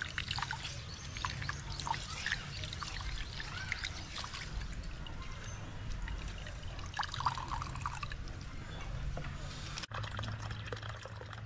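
Water trickling and pouring, with a low steady hum underneath; the sound drops out for a moment near the end.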